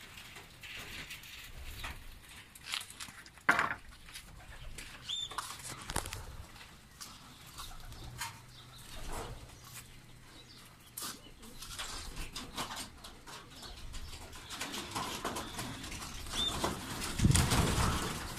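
Racing pigeons' wings flapping and clapping as the birds take off from the loft roof. Scattered wing strokes come earlier, then a louder, busier flurry near the end.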